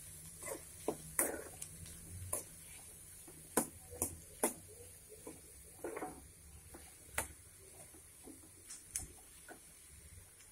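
Steel spoon stirring chopped ridge gourd and onion in a kadai: irregular light clinks and knocks of the spoon against the pan.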